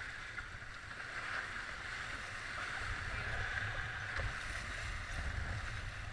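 Water rushing steadily along the hulls of a Tornado catamaran sailing at speed, with wind rumbling on the microphone that grows a little stronger partway through.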